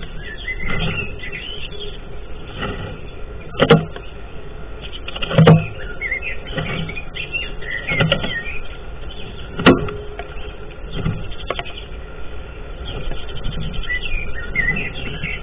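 Eurasian tree sparrow moving about inside its nest box, rustling and scraping the dry grass nest material, with four sharp knocks as it bumps or hops against the box, the loudest about five seconds in. Faint short chirps come through now and then, all heard through the nest-box camera's microphone.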